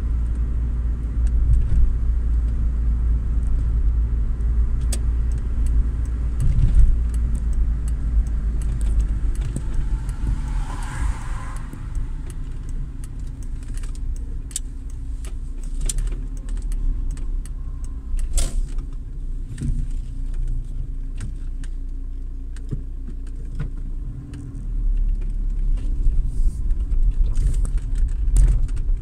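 Car cabin noise while driving slowly: a steady low rumble of engine and tyres, with scattered small clicks and rattles. Near the end the rumble grows as the car rolls onto a rough, patched surface.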